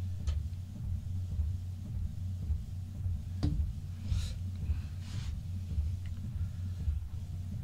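Inkjet printer printing a photo sheet at high quality: a steady low mechanical drone, with two sharp clicks and a couple of brief swishes.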